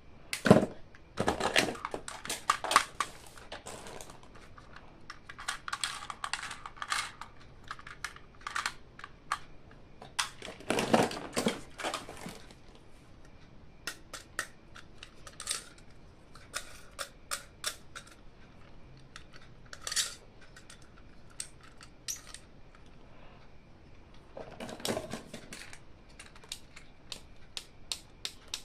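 Hands unboxing plastic toys: scattered clicks and taps of plastic parts, with a few longer crinkling, rustling stretches of packaging, loudest near the start and around a third of the way in.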